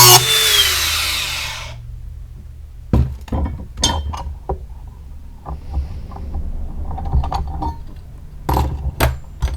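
Angle grinder grinding a steel lawnmower blade, then switched off and spinning down, its whine falling and fading over about a second and a half. After a short pause come scattered metallic clinks and knocks as the blade is handled, loudest near the end.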